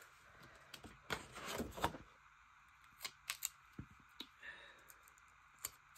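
Faint handling of a paper sticker sheet: a short rustle about a second in, then a few small sharp clicks and ticks.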